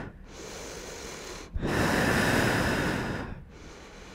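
A woman's audible breathing: a long, louder breath beginning about a second and a half in and lasting nearly two seconds, between quieter stretches.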